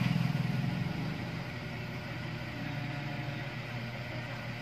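A steady low hum, easing slightly in the first second and then holding level.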